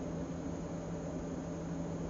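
Steady room background noise: an even hiss with a constant low machine hum underneath, unchanging throughout.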